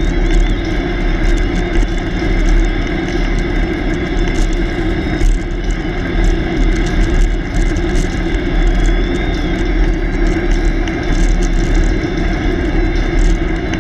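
Steady wind rush over a bicycle-mounted camera's microphone, with the tyres humming on coarse asphalt as the bike rolls along.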